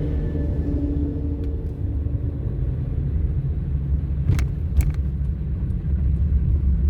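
Steady low rumble of a car heard from inside the cabin as it drives slowly over a snow-covered road, with two sharp clicks about four and a half seconds in.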